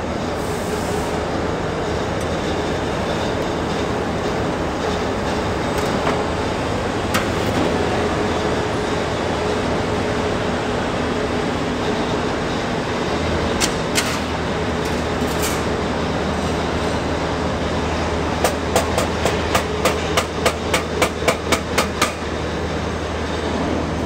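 A duct zipper (square-duct seam closing machine) running, its rollers folding and closing the seam of a galvanized sheet-metal duct as it passes through: a steady mechanical rattle and hum, with a deeper hum joining about halfway. Near the end comes a quick run of sharp metallic clicks, about three or four a second.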